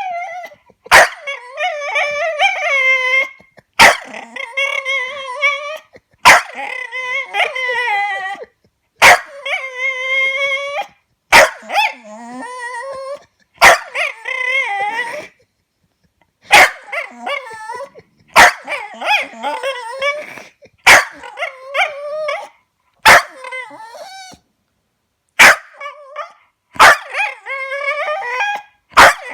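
A dog howling and whining in repeated wavering calls of one to three seconds, each starting with a sharp click, with short silences between.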